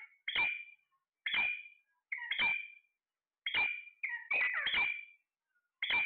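Alexandrine parakeet calling repeatedly, short sharp calls about once a second, with a quick run of three overlapping calls around four to five seconds in.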